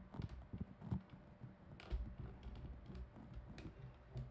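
Light clicks and knocks from handling and adjusting an iographer Multi Pro iPad case's spring-loaded clamp and screws. The sharpest clicks come about one, two and three and a half seconds in.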